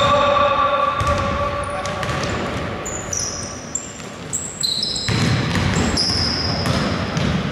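Basketball game on a hardwood court: sneakers squeaking in short, high chirps, a basketball being dribbled, and players' voices calling out.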